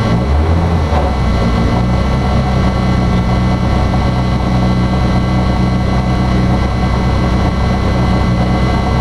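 Citroën Saxo rally car's engine running steadily while the car stands still, heard from inside the cabin.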